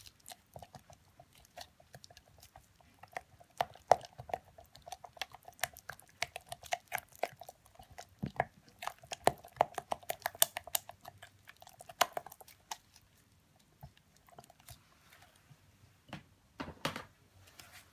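Thick cold-process soap batter stirred by hand with a spatula in a plastic jug: irregular wet clicks and scrapes of the spatula against the jug's sides. There is a quieter lull about three quarters of the way through, then a few louder strokes.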